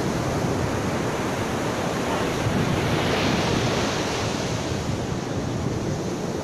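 Heavy ocean surf breaking on a beach, a steady rushing wash that swells a little louder about halfway through as a wave breaks.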